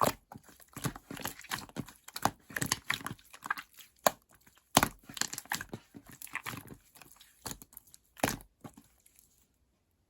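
Marbled slime being squished, stretched and pressed by hand, making irregular wet clicks, pops and crackles that stop abruptly about nine and a half seconds in.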